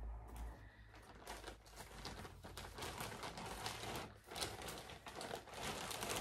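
Continuous crinkling, rustling handling noise as a large cross-stitch project on fabric is handled and unfolded.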